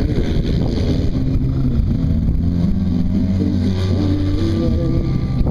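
Polaris RZR side-by-side engine running hard, its pitch rising and falling as the throttle comes on and off.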